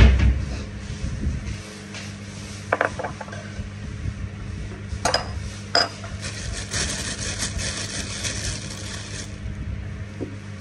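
Handling noises at a granite mortar and pestle: a heavy thump at the start, a few sharp clicks, then a few seconds of dense scraping and rustling about halfway through.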